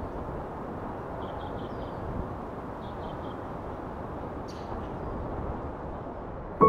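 Steady low rushing outdoor ambience with a few faint, short bird chirps scattered through it. Near the end a bell-like tone is struck sharply and starts to ring, much louder than the ambience.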